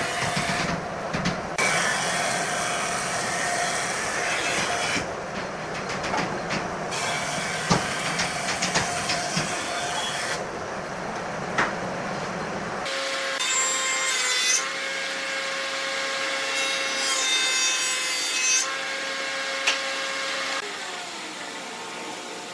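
Woodturning lathe running while a tool cuts the spinning wood, giving a steady scraping and rasping of wood being shaved. About two-thirds of the way through the sound changes abruptly to a thinner, whining cut with steady high tones.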